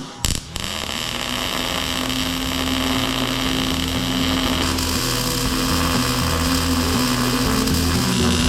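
Electric arc welding: a welder running a continuous cleanup bead on a steel shelf frame, a steady buzzing hiss with a constant low hum, started after a couple of short clicks.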